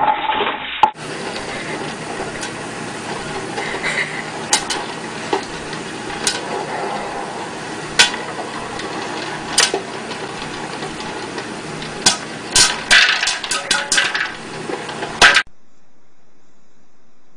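Popcorn popping in an electric stirring popcorn popper under a clear dome: a steady hiss of hot oil with sharp pops, scattered at first and then a quick run of pops near the end, cutting off suddenly. It opens with a brief loud clatter.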